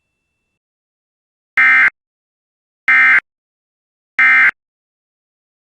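Emergency Alert System end-of-message signal: three short, identical bursts of warbling two-tone digital data, about a second apart, closing the broadcast blizzard warning.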